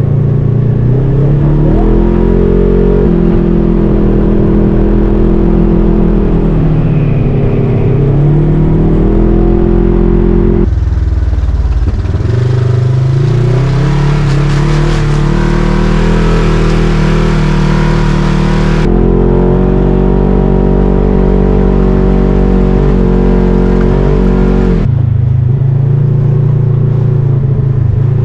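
Polaris RZR 1000 four-seater UTV's parallel-twin engine running loudly on the trail, its pitch rising and falling as the throttle is opened and eased off. The sound changes abruptly about 11, 19 and 25 seconds in, with extra hiss over the engine in the middle stretch.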